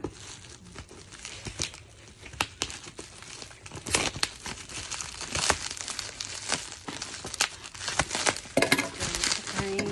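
Shoe packaging being crinkled and torn open by hand: irregular crinkling and crackling with sharp tearing sounds, getting busier about four seconds in.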